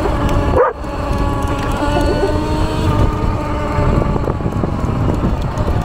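Sur Ron X electric motorbike's motor whining steadily while riding, over heavy wind rumble on the microphone. A brief sliding pitched sound cuts in about half a second in.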